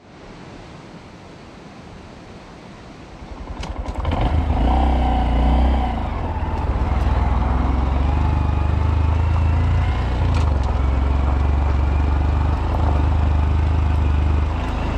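Honda Monkey 125's single-cylinder four-stroke engine, low pulses at first that quicken about three seconds in. From about four seconds it runs loud and steady as the bike pulls away and rides on.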